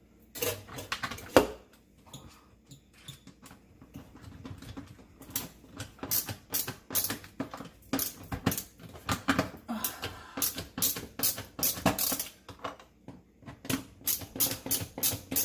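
Repeated small clicks and scrapes of a Phillips screwdriver driving screws into a dishwasher's plastic parts. They are sparse at first, with one sharp click, then come quickly, several a second, from about five seconds in.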